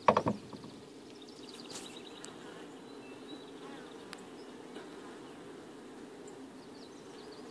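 A colony of honey bees nesting inside a log wall under the eaves, buzzing steadily as a low, even hum of many bees at the nest gap. A brief louder sound right at the start.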